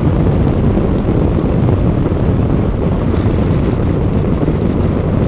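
A touring motorcycle cruising steadily at road speed: a constant engine drone mixed with wind rushing over the microphone.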